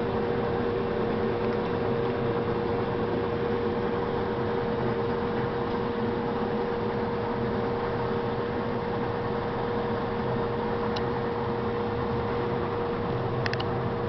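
Combine harvester running steadily: a dense mechanical churn with a constant hum, and a few faint clicks near the end.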